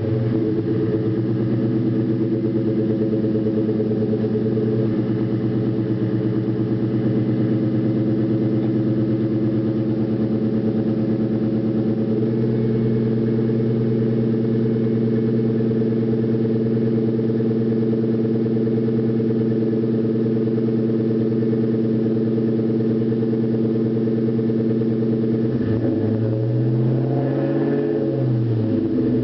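2001 Ford Mustang GT's 4.6-litre V8 idling just after a cold start, with a light knock that the owner puts down most likely to a spun rod bearing. Near the end the engine speed rises and falls once, a brief blip of the throttle.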